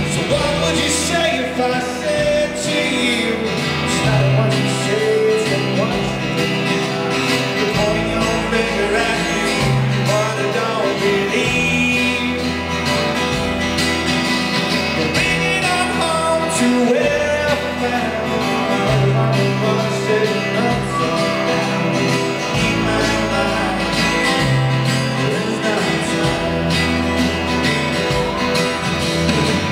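Live rock band playing through a PA: electric guitars, bass and drums, with a male voice singing.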